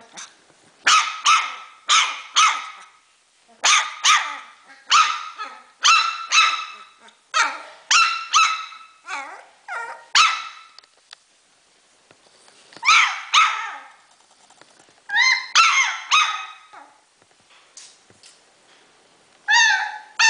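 Four-week-old Pumi puppy barking: short, high-pitched barks in quick runs of two to four, with a couple of brief pauses.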